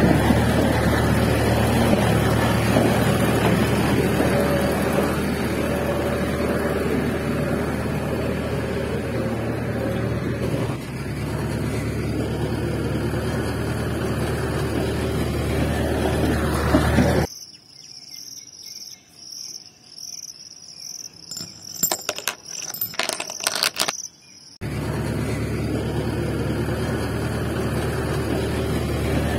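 A steady engine-like motor hum that cuts off abruptly about 17 seconds in. For about seven seconds insects chirp in a steady high pulse, about two chirps a second, with a few clicks, and then the motor hum comes back.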